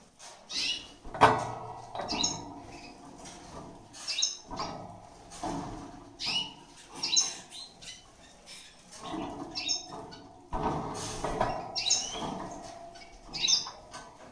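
Caged redpoll giving short, high chirping calls about once a second, with rustling from its movements in the wire cage and a sharp knock about a second in.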